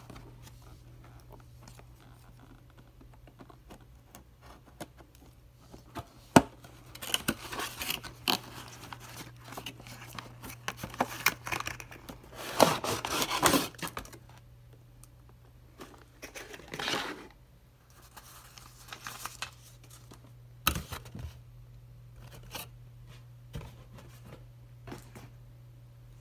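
Cardboard toy box being opened by hand: irregular rustling, scraping and tearing of the packaging, loudest in a burst about halfway through, with a few sharp taps.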